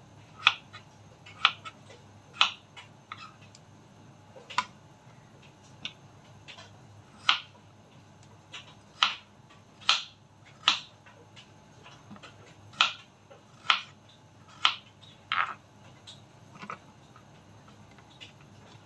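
Kitchen knife slicing a peeled potato on a plastic cutting board: a sharp knock each time the blade goes through and hits the board, at an irregular pace of about one a second.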